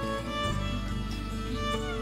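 Background instrumental music with a violin playing long held notes.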